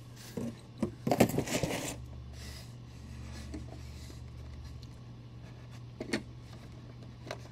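Handling noise of statue parts being fitted together by hand: a rustle and small clicks about a second in and a sharp click about six seconds in, over a steady low hum.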